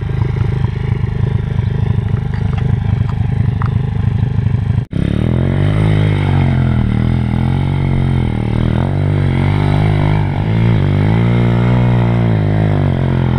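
Demon X 140cc pit bike's four-stroke single-cylinder engine running at a steady idle, then, after a brief cut about five seconds in, revving up and down repeatedly as the bike is ridden.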